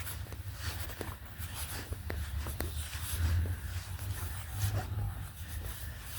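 Quiet outdoor ambience: a low, fluctuating rumble with scattered faint clicks and ticks.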